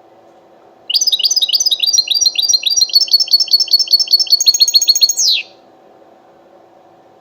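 European goldfinch singing: one long run of quick, repeated high notes lasting about four and a half seconds and ending in a falling note. A faint steady hum lies underneath.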